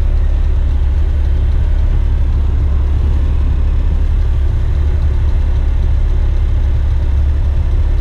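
Western Star tipper truck's diesel engine idling, heard from inside the cab as a steady low rumble.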